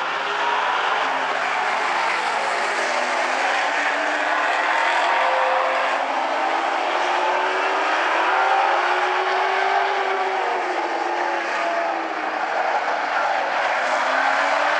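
A field of vintage modified race cars running at race speed on an oval track. Several engines' pitches waver and glide up and down together over a steady din.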